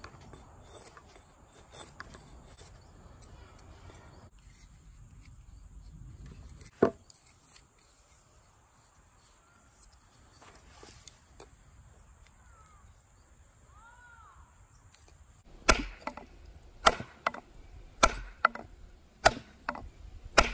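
Sharp wooden knocks: a single one about seven seconds in, then near the end a quick run of several, roughly one to two a second, as a wooden wedge is driven into the top of the axe handle to lock the head on.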